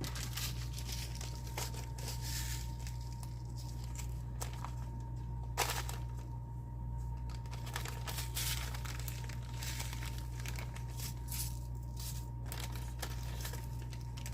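Plastic packaging crinkling and rustling in the hands, irregular throughout, with a sharper click about five and a half seconds in, over a steady low hum.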